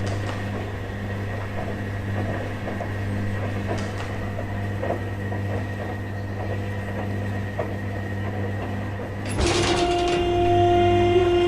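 Washing machine running with a steady low hum and faint clicks. Near the end a louder steady tone with several overtones starts suddenly.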